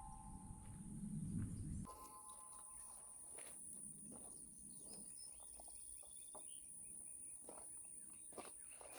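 A steel helium tank's ring after a pellet strike fading away and stopping about two seconds in. Then faint outdoor quiet with a few soft bird chirps and light clicks.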